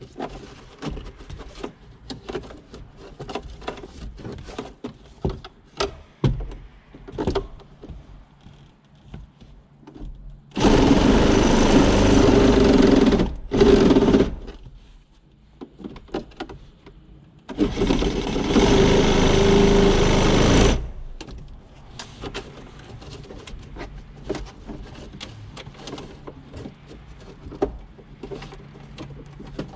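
Power saw cutting into the Jeep dash in two runs of about three seconds each, with handling clicks and knocks before and between them.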